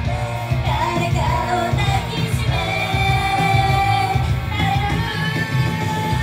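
Japanese idol girl group singing a pop song live: female voices over loud music with a dense, pulsing bass, and one long held note near the middle.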